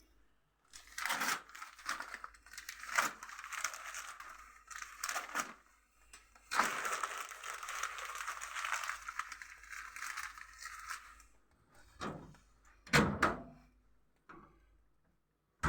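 Paper and kindling fire crackling in a wood-burning stove's firebox as it catches, in two long stretches, with a couple of knocks near the end.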